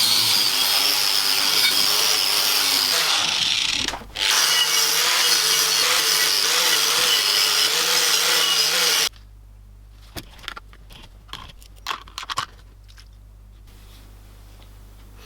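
A power tool running while it sands rusty cast-iron metal, with a brief pause about four seconds in. It stops abruptly after about nine seconds, and a few light clicks and knocks follow.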